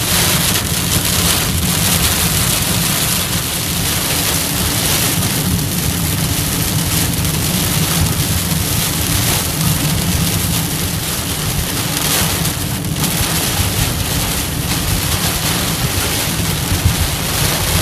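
Heavy rain hitting a moving car's roof and windshield, heard from inside the cabin, over the car's steady road noise.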